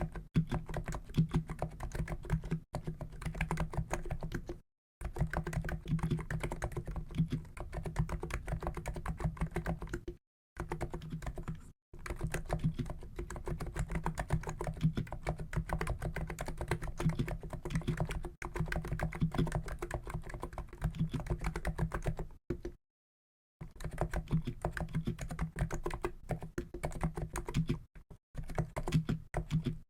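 COX Endeavour keyboard with 50 g NIZ electro-capacitive (EC) switches being typed on quickly and continuously. The rapid keystrokes carry most of their weight low and stop in a few brief pauses, the longest about a second long roughly three quarters of the way through.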